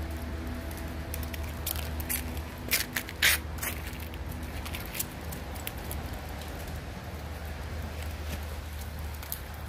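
Puppies chewing food, with a handful of sharp crunches clustered between about two and three and a half seconds in, the loudest near the end of that run, over a steady low hum.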